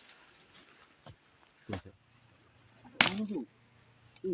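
Steady high chirring of night insects, with a few short wooden knocks as a stake is fitted against a tent pole. The loudest is a sharp crack about three seconds in, followed by a brief voice.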